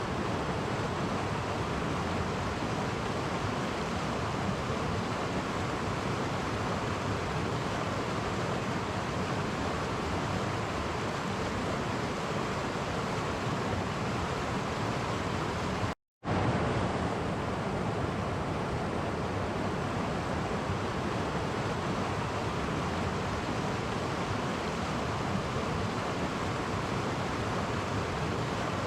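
Clear stream water rushing steadily over small cascades. The sound drops out completely for an instant a little past halfway, then resumes unchanged.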